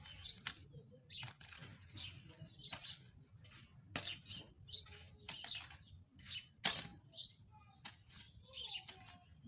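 Weeding in garden soil: irregular scraping and chopping strokes, roughly one every second or so, with small birds chirping throughout.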